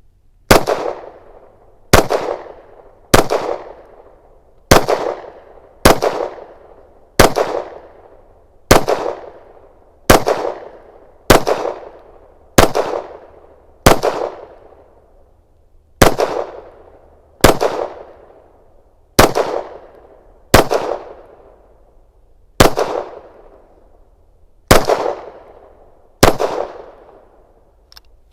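Canik METE SFT 9mm pistol firing steady, aimed single shots, nearly twenty in a row at about one every second and a half, each shot followed by a short echo.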